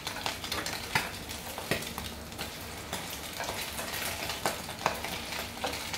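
Eggs frying in oil in a nonstick pan, a steady sizzle as they crisp, with chopsticks tapping and scraping the pan several times.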